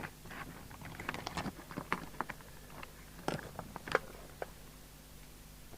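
Scattered small clicks and taps at irregular intervals, two sharper ones a little past halfway.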